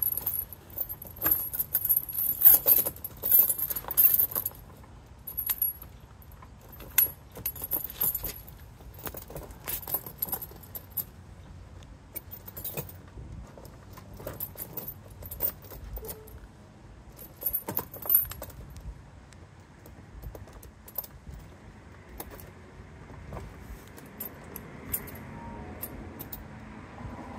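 Steel ATV tire chain jangling and clinking as it is pulled up around the tire and tightened by hand. It is busiest in the first few seconds, then comes as scattered clinks, and goes quiet near the end.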